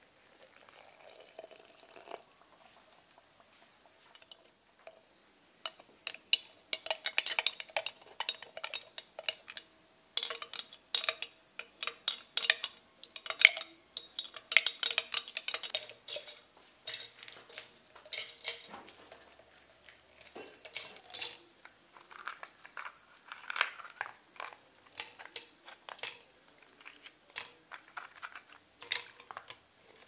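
Metal spoon clinking against a glass mason jar as instant coffee is stirred, with ice cubes knocking against the glass. The sharp clinks start a few seconds in and come in quick, irregular runs.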